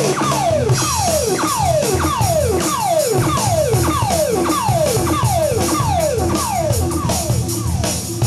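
Theremin making a steady run of downward swoops, about two a second, over rock drums and bass; the swoops fade out near the end.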